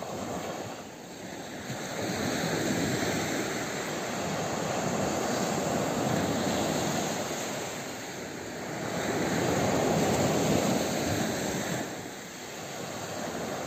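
Small waves breaking and washing up a beach, the surf swelling and falling back twice.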